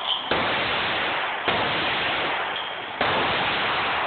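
Three gunshots about a second and a half apart, each a sharp crack followed by a long reverberant wash that fills the enclosed range.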